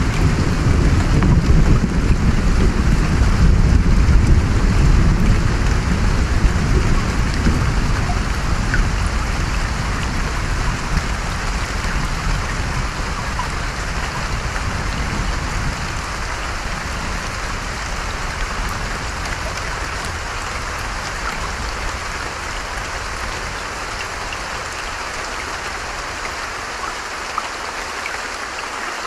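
Steady rain and running stream water, with a low rumble of thunder that is loudest about four seconds in and dies away over the following fifteen seconds or so.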